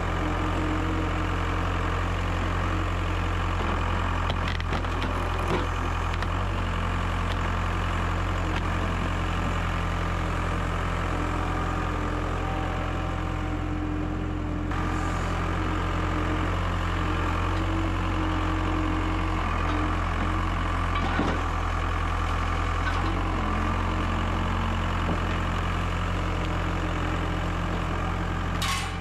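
Yanmar C25R crawler dumper's three-cylinder diesel engine running steadily at a constant speed, with a few light knocks over it.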